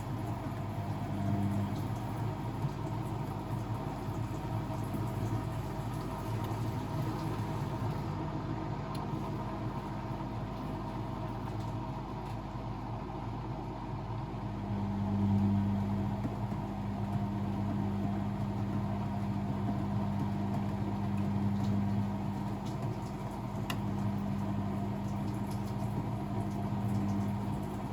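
Blomberg WAF 7442 SL washing machine running mid-cycle: a steady motor hum with a low drone, swelling louder every few seconds as the drum turns.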